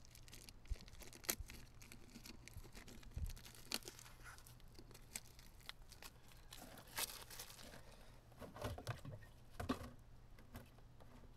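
Faint rustling and crinkling of close hand work, with scattered sharper clicks and knocks: gloved hands handling nitrile gloves, packaging and parts during an oil filter change.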